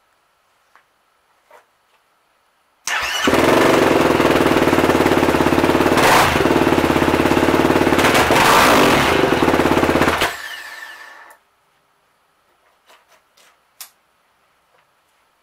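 Yamaha YFZ450R quad's single-cylinder four-stroke engine, breathing through a Lonestar Racing full exhaust, starting about three seconds in, running loud with two short throttle blips, then shut off and dying away about ten seconds in. It is the after sound test, with the full exhaust, K&N air filter and Power Commander V tune installed.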